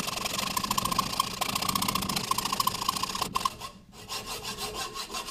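A hand-held file or abrasive rasping against a metal workpiece turning in a lathe chuck, a fast, even scraping over the lathe's running hum. The heavy scraping stops about three seconds in, then lighter, broken strokes follow.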